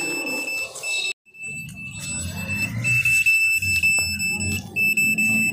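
An HRSKY satellite finder meter sounding a steady high beep tone, broken by a few short gaps and a brief dropout a little over a second in; the tone signals that the meter is picking up the satellite signal.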